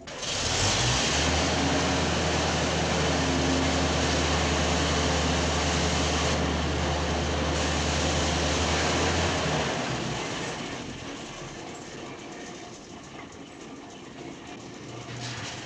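Heavy machinery running: a steady low engine drone under a dense rumble, which fades away after about ten seconds.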